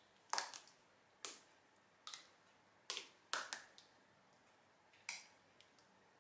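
Faint, sharp clicks and taps, about six of them at irregular intervals, from handling a plastic jug while pouring thick soap batter into a mould.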